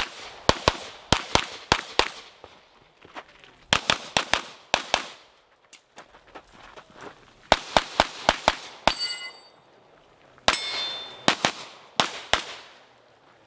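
Handgun fire on a practical-shooting stage: shots mostly in quick pairs, in three strings with short pauses between them as the shooter moves. Steel targets ring after hits about nine and ten and a half seconds in.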